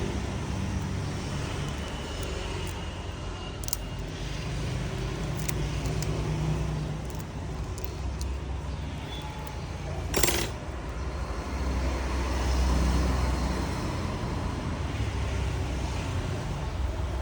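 Low rumble of passing road traffic that swells and fades, with a few small clicks and a sharper click about ten seconds in.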